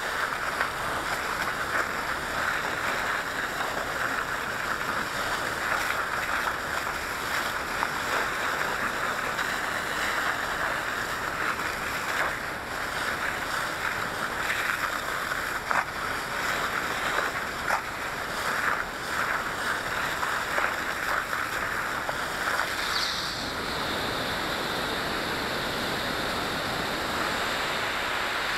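Fire hose quick-attack line spraying water onto burning branches: a steady hiss of spray with scattered small crackles.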